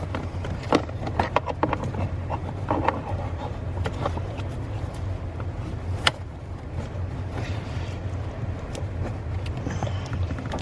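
Small clicks, rattles and scrapes of a hood release cable and its plastic clip being worked through the car's firewall, with one sharper click about six seconds in. A steady low hum runs underneath.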